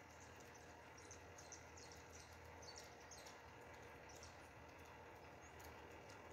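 Near silence: faint room tone with a low hum, and faint short high chirps scattered through the first few seconds.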